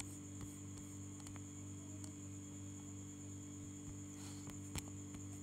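Steady electrical mains hum with a high faint whine above it, and a few faint short clicks.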